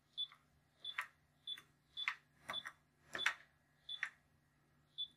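Keys being pressed one at a time on an IntelliKeys USB touch-membrane keyboard, about eight presses at an unhurried pace. Each press gives a short high beep with a light tap: the keyboard's key-press feedback as each letter is typed.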